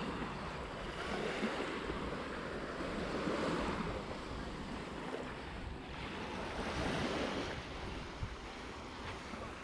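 Small sea waves washing onto the beach, the surf swelling louder every few seconds and falling back, with some wind buffeting the microphone.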